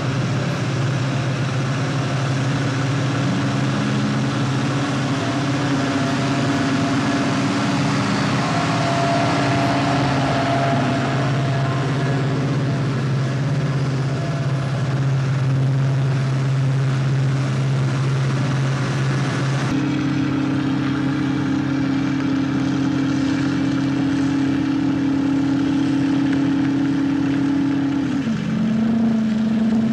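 Heavy diesel engine of a large off-road haul dump truck running with a steady low drone. It changes pitch abruptly about two-thirds of the way through, and drops suddenly in pitch near the end.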